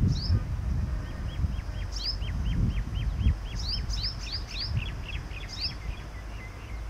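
Birds calling: high, sharply falling chirps in quick pairs and triplets, and a steady series of lower calls about two a second that starts about a second in and fades near the end. An uneven low rumble sits underneath.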